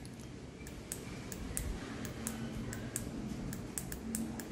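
A run of light, sharp clicks at irregular intervals, about four or five a second, over a low rumble.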